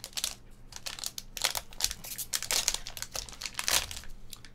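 Metallic foil trading-card pack wrapper crinkling in irregular sharp crackles as it is handled and torn open.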